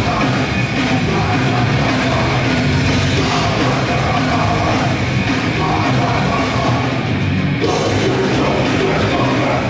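Grindcore band playing live, loud and dense without a break.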